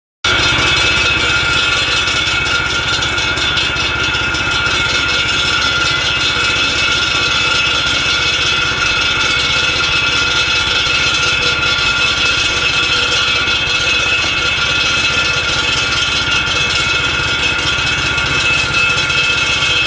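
KC-16 walk-behind concrete saw running at a steady speed, its engine note under a constant high whine that cuts in abruptly just after the start.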